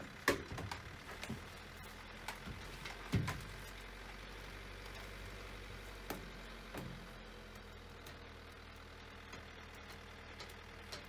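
Van engine running, heard from inside the van's rear as a steady low hum. A sharp click comes just after the start, a thump about three seconds in, and a few lighter knocks later on.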